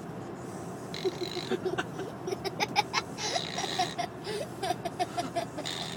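A sleeping young boy snoring, three raspy breaths about two and a half seconds apart, with stifled giggling in between.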